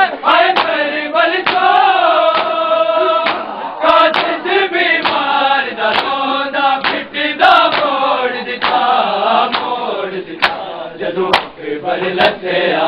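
A group of men chanting a Punjabi noha together, with sharp slaps of hands striking chests (matam) at a rough, irregular beat.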